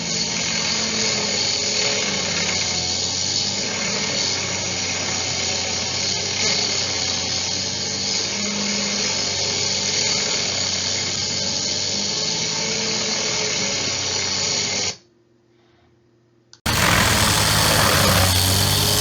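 Heavy machinery running steadily, an engine drone with a grinding whine. It cuts off abruptly about fifteen seconds in. After a second or so of near silence, a louder engine-driven machine starts and runs to the end.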